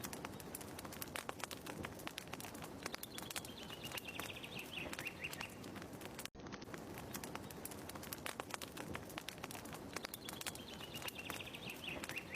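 Fire crackling in a short looped ambience track, with a bird's falling, trilled call about three seconds in and again near the end. The sound drops out for an instant about six seconds in, where the loop restarts.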